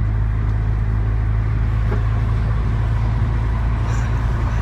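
Steady low rumble of engine and tyre noise inside the cabin of a moving car.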